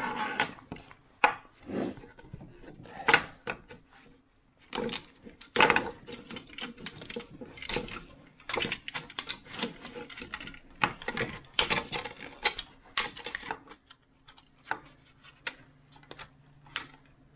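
Orange 3D-printed plastic parts clicking and clattering as they are handled, pulled apart and set down on the table, in irregular sharp clicks.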